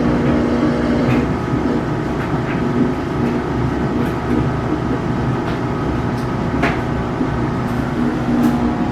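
Samsung washing machine running its spin cycle empty: a steady motor hum and drum rumble, with a few light clicks. The machine has been throwing an error code once it reaches spin.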